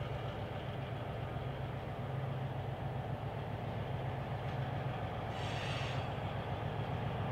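An EMD SW1200 switcher's two-stroke 12-cylinder 567 diesel engine running steadily as the locomotive moves slowly with a cut of cars, a constant low drone. A brief hiss cuts in about five and a half seconds in.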